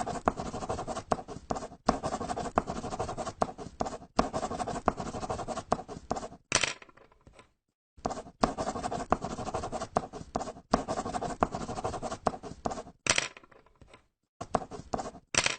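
Paper being folded and crumpled: a dense, crackling rustle full of small snaps in two long stretches, each ending in a sharp, louder crack, with a short pause between them. Sparser crackles and one more crack come near the end.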